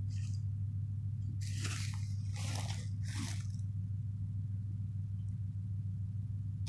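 A dog pawing and nosing in short lawn grass: a few short rustling, crunching bursts, mostly in the first half, over a steady low hum.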